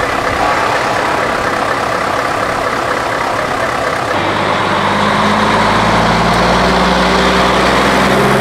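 Scania S650 V8 truck with an open exhaust pipe idling unevenly. About four seconds in it gives way to a steadier truck engine drone as trucks drive along the road.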